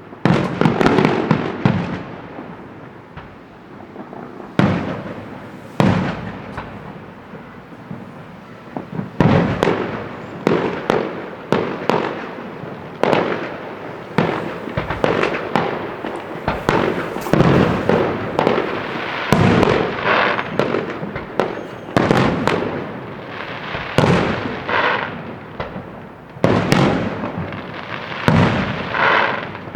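Aerial fireworks display: shells bursting in quick succession, sharp bangs every second or so, each trailing off into crackling.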